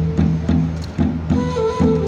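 Side-blown flute playing long held melody notes, one fading out and a new one entering near the end with a slight dip in pitch, over a low, pulsing accompaniment of about three beats a second.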